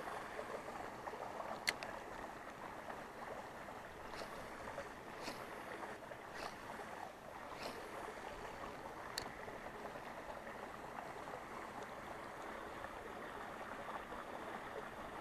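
Faint, steady rush of running water, with a few light clicks from a spinning reel as a spinner is cast and reeled in. The first click comes about two seconds in, and a few more follow every second or so.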